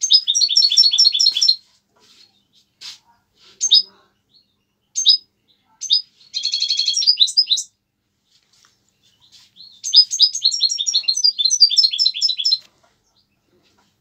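A small songbird singing in three bursts of rapid, high twittering trills: one at the start, a shorter buzzy one around the middle, and a longer one from about ten seconds to nearly thirteen, with a few single chirps between them.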